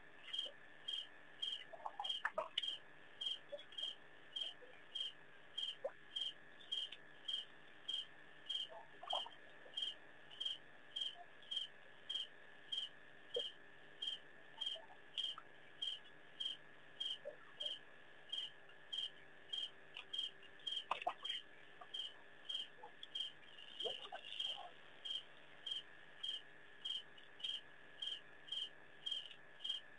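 A cricket chirping at night in an even rhythm, about two short chirps a second, over a steady high-pitched tone.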